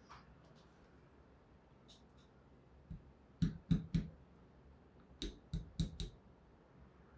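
Light clicks and taps of small 3D-printed plastic letter tiles being handled and set down: three quick clicks about three and a half seconds in, then four more about a second later.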